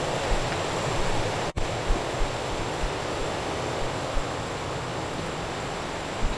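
Steady rushing of flowing water, a stream or river running beside the trail, with a few soft low thumps and a momentary break about one and a half seconds in.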